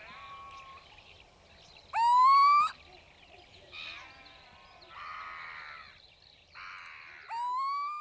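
Little owl (Athene noctua) calling: two loud, drawn-out calls that rise in pitch, one about two seconds in and one near the end, with fainter calls and harsh, rough notes between them.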